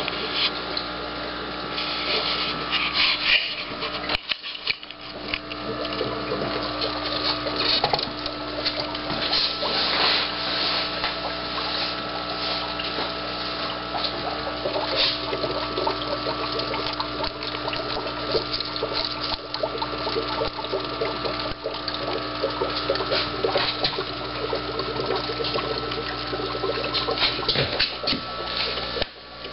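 Aquarium water splashing and bubbling over the steady hum of the tanks' pumps and filters.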